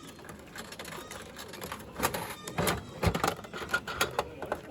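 Rapid plastic clicking from a capsule toy being handled, with a few sharper knocks about two to three seconds in.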